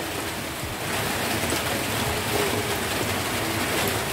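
Light drizzle falling, an even, steady hiss.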